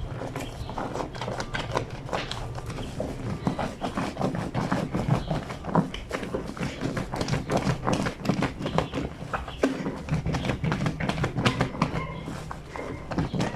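Wet fleece sheets being scrubbed by hand against a granite washboard sink: a fast, irregular run of wet knocks and rubbing, several strokes a second.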